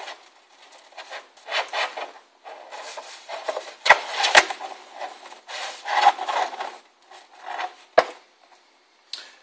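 A sheet of paper being rolled and rubbed by hand around a cylinder on a workbench to form a tube: a run of rustling, scraping strokes. There are two sharp knocks about four seconds in, half a second apart, and another near the end.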